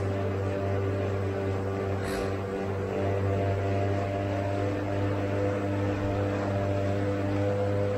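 Indoor bike trainer droning under a mountain bike's rear tyre as the rider pedals: a steady hum with several overtones that drift slightly in pitch as the speed changes. A brief click sounds about two seconds in.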